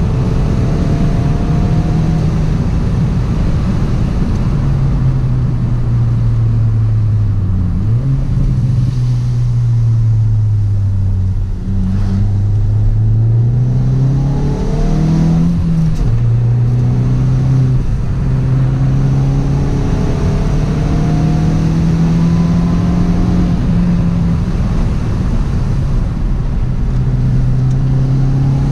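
Hyundai i20 N's turbocharged 1.6-litre four-cylinder engine heard from inside the cabin under steady throttle, its pitch sinking for a few seconds about a third of the way in and then climbing again after a short break, with a gear change from third to second along the way. A steady rumble of road and tyre noise runs underneath.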